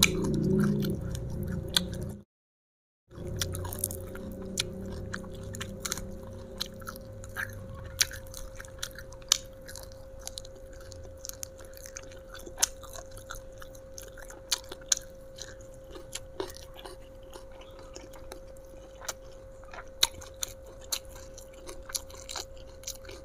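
Close-up chewing and crunching of raw young jengkol (dogfruit) beans eaten with their skins, with wet mouth clicks and crunches. The sound cuts to silence for about a second, two seconds in, and a faint steady hum runs underneath.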